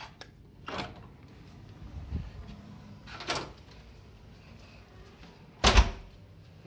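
Hotel room door being unlocked with a key card and pushed open: clicks and knocks of the lock and handle, then a heavy thud near the end, the loudest sound.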